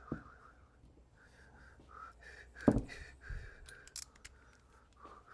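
Clunks and clicks of metal parts and tools being handled while the timing cover is refitted to a 1972 Norton engine, with one heavy knock a little under three seconds in and a lighter one just after.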